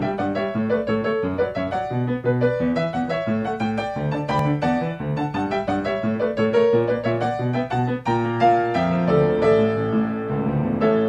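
Piano music: a quick run of short notes over a steady lower accompaniment.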